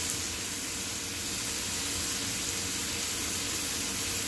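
Yellowtail (hamachi) fillets sizzling steadily in a little olive oil in a frying pan over medium heat.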